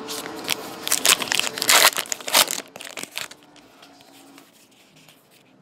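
A foil trading-card pack being torn open and its wrapper crinkled, a dense crackling with the loudest rips about two seconds in. It dies away about three seconds in.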